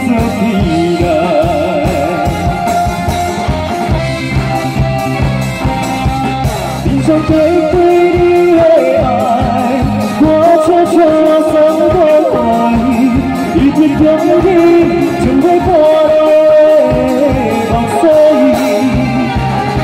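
Live band playing a pop ballad with a male singer's voice carrying the melody through the PA; the band grows louder about seven seconds in.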